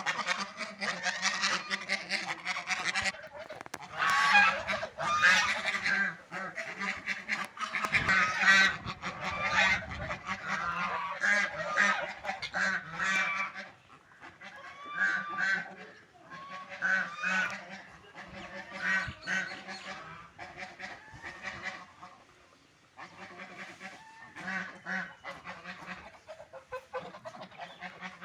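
A flock of ducks calling noisily, many quacks overlapping. The calls are densest for about the first half and come in more spaced-out bouts after that.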